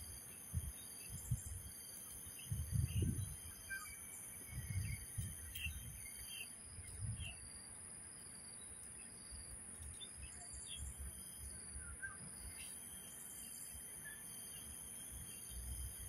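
Outdoor daytime ambience: a steady high insect drone with scattered short bird chirps. Over it, irregular low rumbling bumps come in the first half and are the loudest sounds.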